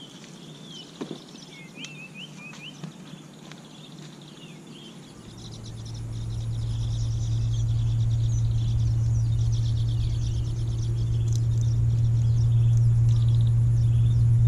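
Birds chirping in short calls for the first few seconds, then a steady low rumble that builds from about five seconds in and holds, drowning out everything else.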